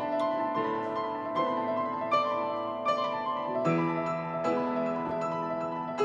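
Background piano music, a steady run of struck notes, with lower notes joining a little past halfway.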